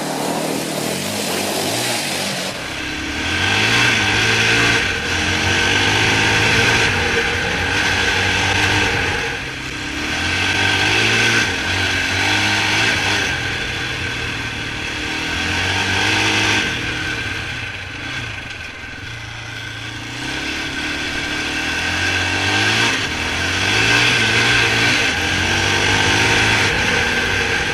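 Polaris Outlaw 525 quad's KTM single-cylinder four-stroke engine revving up and down over and over under throttle, its pitch rising and falling every two to three seconds.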